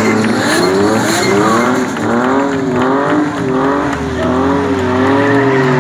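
Drift car sliding sideways under power with its tyres squealing, the engine running high in the revs. Its pitch climbs through the first second, then wavers up and down over the tyre noise.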